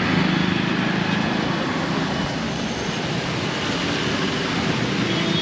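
Steady road and traffic noise, with a low vehicle engine hum running underneath.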